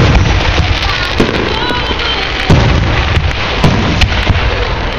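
Fireworks show: aerial shells bursting with deep booms about once a second, with sharp crackles between them.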